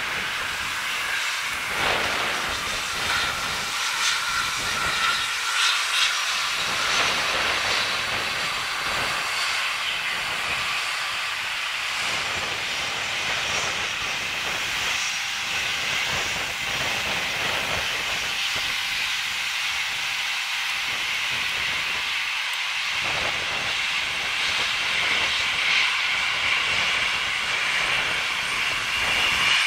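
Jet airliner engines running at taxi power: a steady hissing rush with a faint whine.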